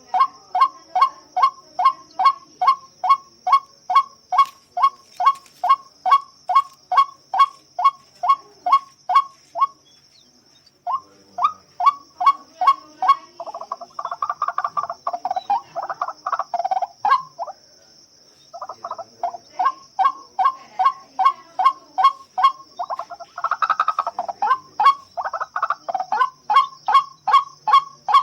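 White-breasted waterhen calling its repeated 'ruak-ruak', about two sharp calls a second. It pauses briefly twice and breaks into faster, jumbled calling in two stretches. A steady high-pitched whine runs underneath.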